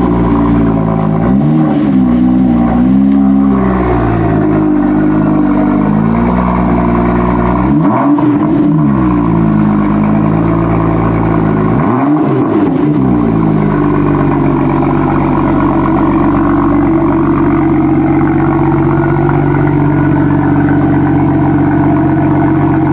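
BMW M2's 3.0-litre turbocharged inline-six running through its quad-tip M Performance exhaust just after start-up. It is revved in short blips about two, eight and twelve seconds in, then settles to a steady idle from about fourteen seconds on.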